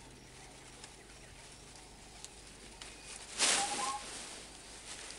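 A bird calls once, about three and a half seconds in: a short rapid trill followed by a higher note, together with a brief rustling burst of noise. Under it is faint outdoor background hiss.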